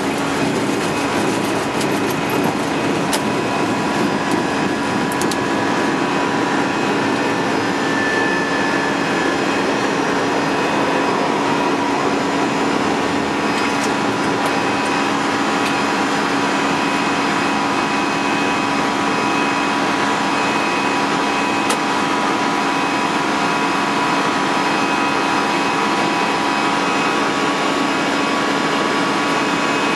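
Airbus A319 flight-deck noise just after lift-off and into the initial climb: a steady, loud rush of engine and airflow noise with a few faint steady tones running through it. A few light clicks come in the first few seconds and once about two-thirds of the way through.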